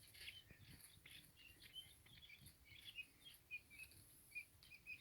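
Baby guinea fowl (keets) peeping softly: faint, short, high chirps, several a second.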